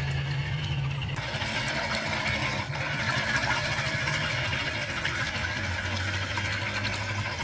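RC tubular-chassis crawler driving through a muddy water-filled ditch: its motor runs with a steady low hum while the wheels churn and splash the water.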